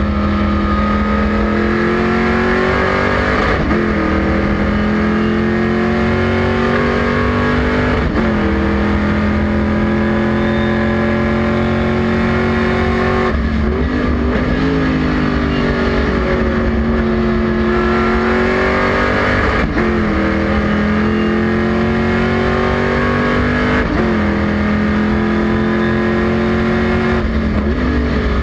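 A Stock Car Brasil race car's V8 engine at full throttle, heard from inside the cockpit. Its pitch climbs steadily and drops sharply at each upshift, about every four to five seconds. Twice it falls away with quick blips as the car brakes and downshifts for corners.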